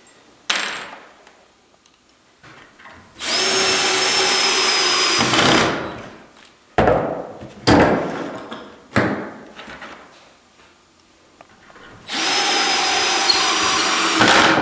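Cordless drill driving screws into wood, in two steady runs of about two and a half seconds each with a constant whine, the second stopping near the end. Between the runs come a few sharp clicks and knocks.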